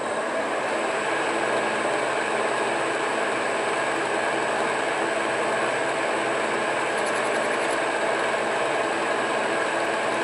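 Monarch engine lathe running steadily: an even mechanical hum and whir from its drive and gearing.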